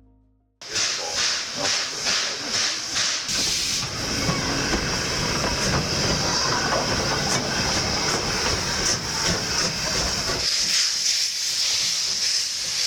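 Steam locomotive at a station: a rhythmic beat about twice a second for the first few seconds, then a steady loud hiss of steam.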